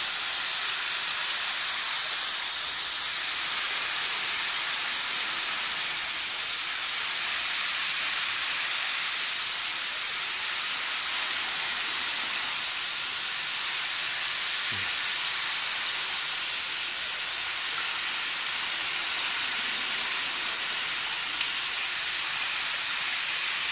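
Water spraying steadily onto a horse and into the bath water it stands in, a constant even hiss. Two short clicks sound, one near the start and one near the end.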